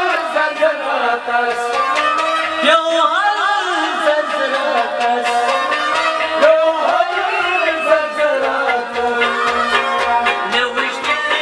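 Kashmiri Sufi song: a man singing a long, wavering melodic line over steady held accompaniment tones and a continuous beat of short percussive strokes.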